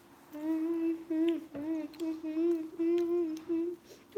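A girl humming a wordless tune in a string of short held notes at nearly the same pitch, each a fraction of a second long.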